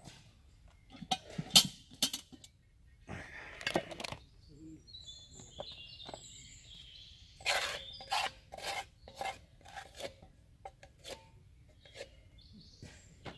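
Camp cooking gear being handled: irregular clinks, knocks and scraping of a Dutch oven and utensils, with the sharpest knock about a second and a half in and a run of knocks around eight seconds in.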